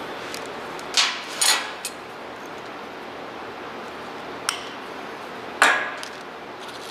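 Wire cutters snipping through the marker light wiring: two sharp metallic snips about a second in, a faint click, then another sharp snip near the end, over a steady background hiss.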